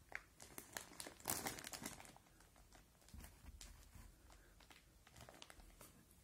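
Soft rustling and crinkling from hands rubbing a long-haired cat's fur, in scattered light crackles with a denser, louder burst between about one and two seconds in.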